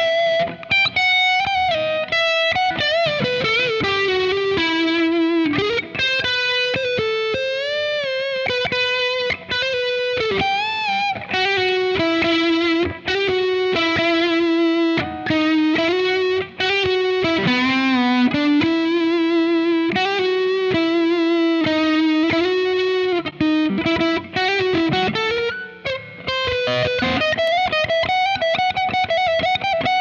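Gibson R8 Les Paul through an overdriven Friedman BE-100 amp head and an Ox Box, playing a distorted rock lead solo: single sustained notes with wide vibrato, string bends and slides, in phrases with short breaks between them.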